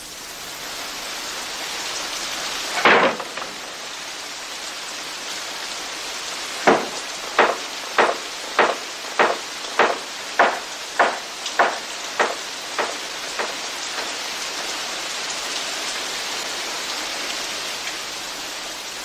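Steady rain-like hiss, with one sharp crack about three seconds in and then about a dozen evenly spaced knocks, a little more than one a second and a half, fading away.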